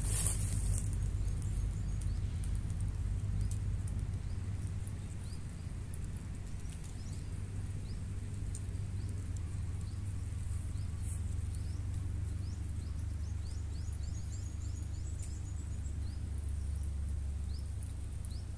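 Outdoor ambience by a lake: a steady low rumble with faint, short rising chirps high up, scattered through it.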